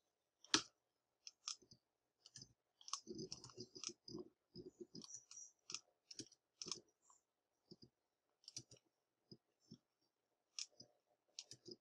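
Faint, irregular clicking of a computer mouse and keyboard keys: many light clicks, some in quick runs, as nodes are selected and deleted.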